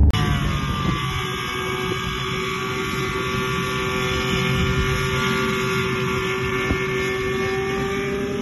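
Schempp-Hirth Arcus M self-launching glider's pylon-mounted two-stroke engine and propeller running ahead of its launch, a steady drone with many overtones.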